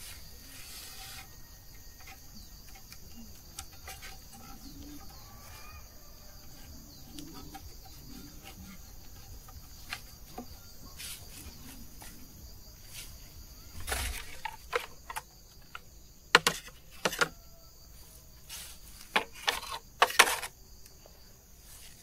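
Steady high chirring of insects, with a run of sharp knocks and clacks starting about two-thirds of the way through; the loudest knocks come in the last third.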